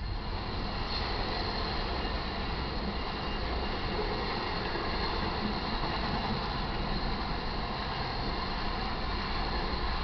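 Intermodal freight cars carrying highway trailers rolling past at speed, a steady rumbling rush of wheels on rail.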